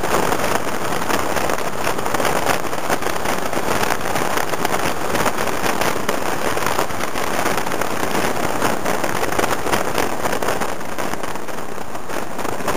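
Scooter riding at road speed: a steady rush of wind and engine noise with constant crackling buffeting on the microphone.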